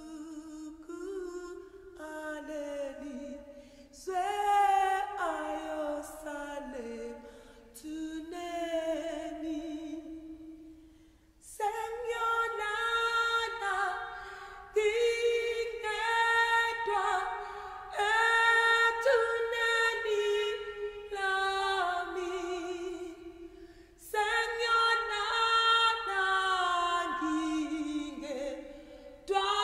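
Background music: several voices singing a slow a cappella piece in long, held phrases that swell and fade.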